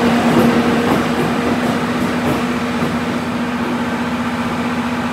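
EF64 electric locomotive moving slowly past on a neighbouring track, with a steady low hum throughout. The train noise eases a little after the first two seconds as the locomotive draws away.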